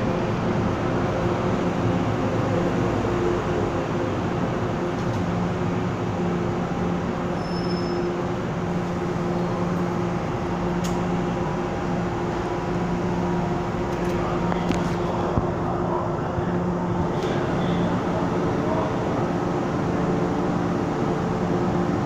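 An MTR M-Train electric multiple unit standing at the platform with its doors open, its onboard equipment humming steadily with a few constant low tones. A few faint clicks come in the second half.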